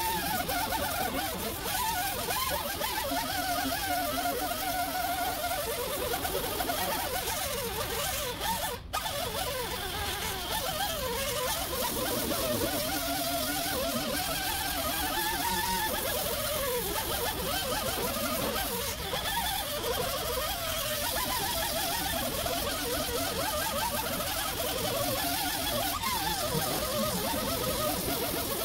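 Small air-powered rotary tool with a small wheel running against a car door's paint to remove overspray. The sound is continuous, with a wavering pitch, and drops out for a moment about nine seconds in.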